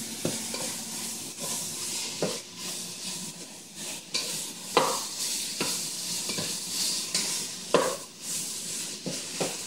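Ground beef frying in a lightly oiled pot with a steady sizzle, stirred and broken up by a wooden spoon that scrapes through it, with a few sharper knocks of the spoon against the pot.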